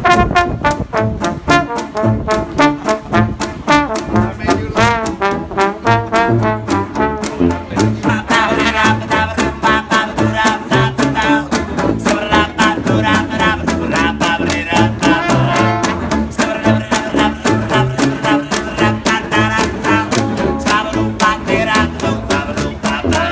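Instrumental music with a fast, steady beat and a wavering melody line.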